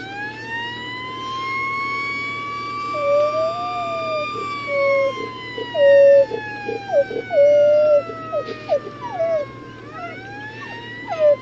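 An emergency-vehicle siren wails, rising over the first few seconds, falling slowly, then rising again near the end, heard from inside a car. From about three seconds in, a dog howls along in a string of short, bending notes, loudest of all.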